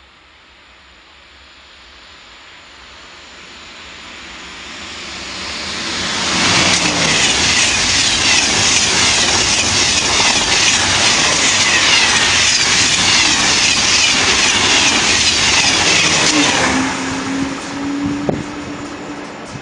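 Two coupled TGV Atlantique high-speed trainsets approaching and passing at speed: a rising rush of wheel and air noise that swells into a loud, steady roar for about ten seconds, then falls away near the end, leaving a low steady hum.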